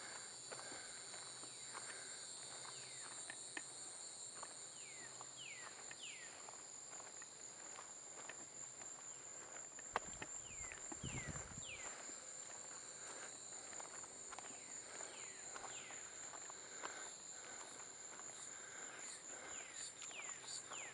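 Steady high trilling of an insect chorus, with a person's footsteps walking and scattered short falling chirps. A sharp click about halfway through is followed by a brief low rumble.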